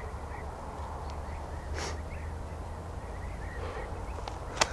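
Outdoor ambience: a steady low hum with faint, scattered bird chirps, a brief rustle about two seconds in, and one sharp click near the end.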